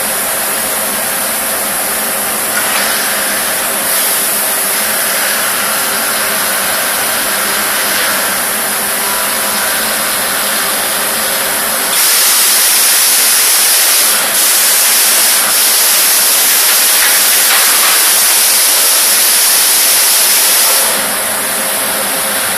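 Aluminium die-casting machine and robot cell running: a steady machine hum under a constant hiss. About twelve seconds in, a louder hiss starts and lasts about nine seconds, with two short dips, then drops back near the end.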